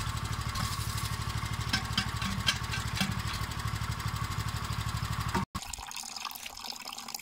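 A small motor runs steadily with a rapid low pulsing and a constant whine, and a few sharp metal clinks sound about two seconds in as grapes are tipped from a steel bucket into the press. After a sudden cut, a quieter hiss with faint trickling of liquid remains.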